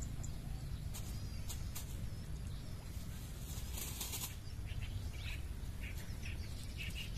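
Outdoor pond-side ambience: a steady low rumble of wind on the microphone, with small birds chirping now and then in the background and a short rustle about four seconds in.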